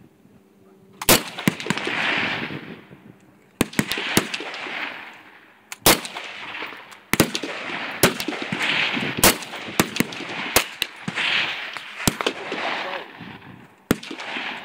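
Shots from a scoped semi-automatic AR-style rifle, fired one at a time every second or two, each sharp crack trailing off in an echo lasting about a second. Fainter cracks fall in between.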